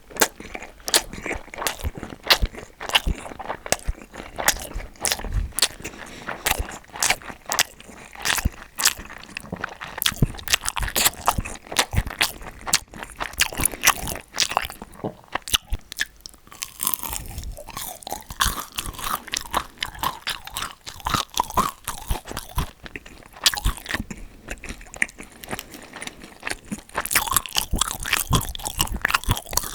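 Close-miked eating sounds: crunchy food being bitten and chewed, with many sharp, irregular crunches.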